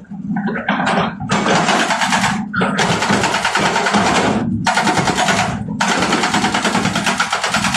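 Hydraulic rock breaker on a Hitachi excavator hammering into rock with rapid, even blows, pausing briefly a few times, over the excavator's steady diesel engine hum.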